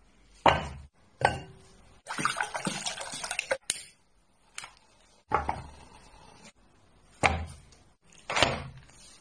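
Kitchen handling sounds from a cast-iron pot, its wooden lid and a tabletop gas burner: about half a dozen sharp knocks and clunks, each dying away quickly. Early on there is a watery, splashing stretch of about a second and a half, as the pot is filled.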